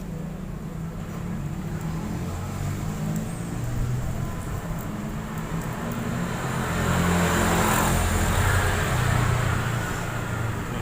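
Road traffic noise: a passing vehicle rumbling, swelling about seven seconds in and fading again.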